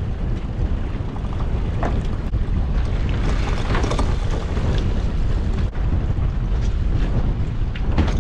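Wind rumbling on the microphone at sea aboard a small boat, with knocks and clattering about three to four seconds in as a lobster pot is hauled in over the side.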